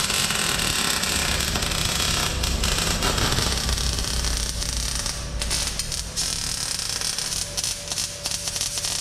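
Electric arc welding of steel plates onto a front drive axle: a steady crackle and hiss from the arc.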